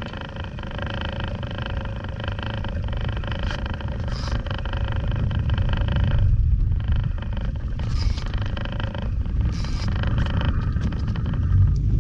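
Heavy-tackle big-game reel whining steadily under load as the line works against a giant bluefin tuna. The whine breaks off about halfway, starts again, and stops shortly before the end, over a loud low rumble of wind buffeting the microphone.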